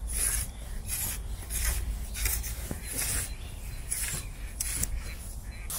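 Carbon sections of a telescopic fishing pole sliding against each other as the pole is collapsed by hand: a series of about eight short rasping strokes, roughly one every half second or so.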